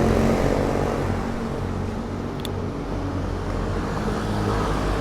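Road traffic: motor vehicle engines running with a steady low hum, and one short high tick about two and a half seconds in.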